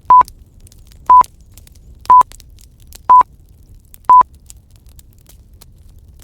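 Pomodoro timer beeping five times, one short electronic beep a second at one steady pitch, over faint crackling of a fire.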